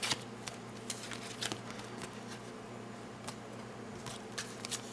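Trading cards being flipped through by hand: a handful of soft, scattered card flicks and slides over a steady low hum.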